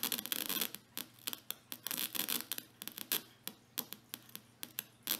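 Irregular crackling and popping from a small speaker as its bare wire is scratched against a 9-volt battery lead, the contact sparking as it makes and breaks.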